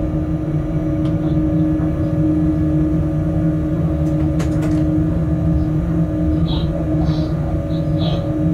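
Freight locomotive running, heard from inside its cab: a steady drone with a constant low hum. A few quick sharp clicks come about halfway through.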